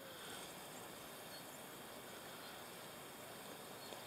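Faint, steady outdoor background hiss with a few soft clicks, and no distinct event standing out.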